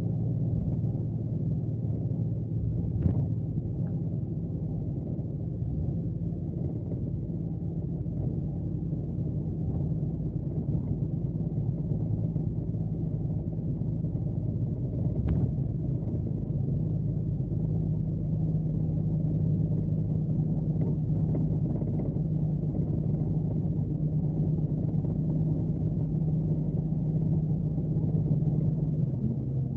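Scania K370C coach's diesel engine running steadily under way, a low even drone whose pitch steps up slightly a little past halfway. Two brief sharp knocks, about three seconds in and about fifteen seconds in.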